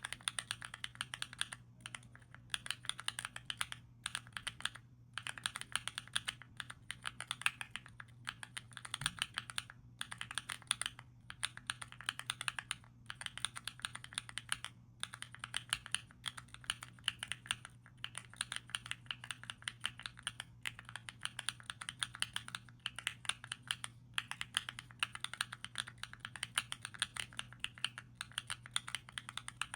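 Mechanical keyboard switches (Epomaker Zebra) on a small KEEBS Pad keyboard fidget being typed on rapidly. It gives a dense run of soft, creamy keystroke clacks, broken by short pauses every second or two.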